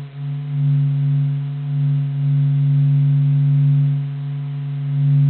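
Sonified sound of the sun: the pressure-wave vibrations of its surface, converted by NASA into frequencies we can hear. It plays as a steady, low, haunting hum that swells and eases every second or two.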